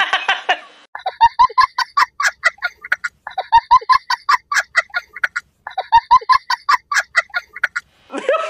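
A looped sound clip of rapid, pitched call notes, about eight a second, played three times in near-identical runs of about two seconds each with clean gaps between.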